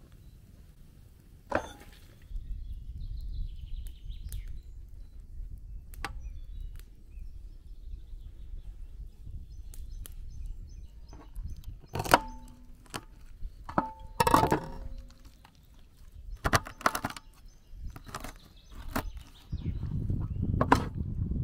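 A knife cutting raw whole chickens on a large aluminium tray: sharp knocks of the blade and meat against the metal, the tray ringing briefly after the hardest strikes.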